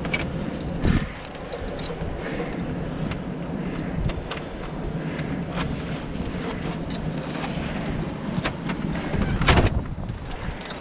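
Blizzard wind buffeting the microphone as a steady low rumble, with scattered faint clicks and one louder knock about nine and a half seconds in.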